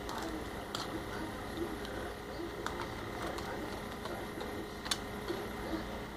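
Knife and metal spike working on a bullhead on a plastic cutting board: a few sharp clicks and ticks, the loudest about five seconds in, over a steady faint background hum.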